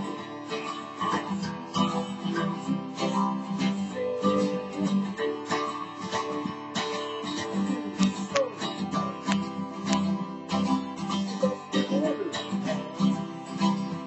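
Acoustic 12-string guitar strummed in a steady rhythm, with a man singing along.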